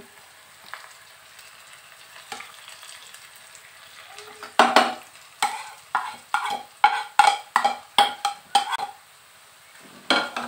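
Onions frying in oil in a wok with a low, steady sizzle; about halfway through, a quick run of about ten sharp scrapes and knocks from a spatula as spice powders are scraped off a plate into the pan and stirred in, with one more knock near the end.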